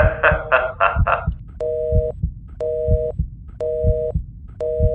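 Telephone busy tone on the line after the call is hung up: a two-note beep, half a second on and half a second off, four times, starting about a second and a half in. A low, regular thumping runs underneath.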